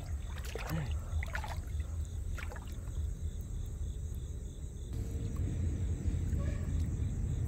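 A steady low rumble with a few faint splashes and knocks in the first couple of seconds, as a small fish on a set hook line is lifted out of shallow pond water and handled.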